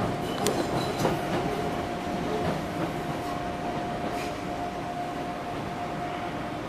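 Enshu Railway 1000 series electric train running, heard from inside the driver's cab: steady running noise with a steady whine, and a few sharp clicks of the wheels over rail joints about half a second and a second in.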